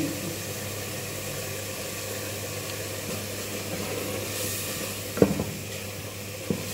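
Dal and masala sizzling in a pot over a gas flame while a wooden spoon stirs it, with a brief louder hiss and then a few sharp knocks of the spoon against the pot a little after five seconds in.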